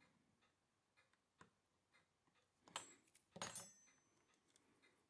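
Two brief clinks and rattles of small metal watchmaker's tools being handled on the bench, the second with a short high ring, over faint regular ticking.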